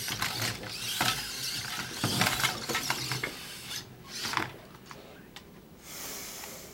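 Small robot's hobby servos driving its plastic wheels, with irregular knocks and clatter as it runs over and bumps against the wooden slats of a plywood course; the sound is busiest in the first four seconds and quieter after.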